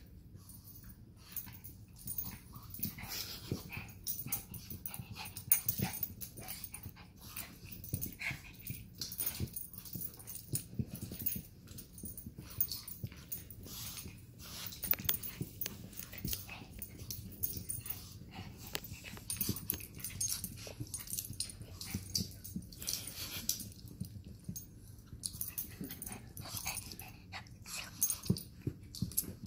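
Two small dogs, a chihuahua-pug mix (chug) and a chihuahua, play-fighting: a continuous, irregular run of short growls and breathy noises, with sharp little clicks among them.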